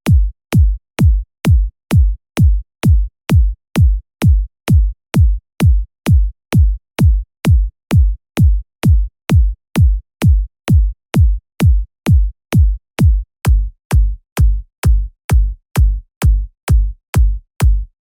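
Electronic kick drum samples played one after another at about two hits a second, each a sharp click followed by a short, deep thump that drops in pitch.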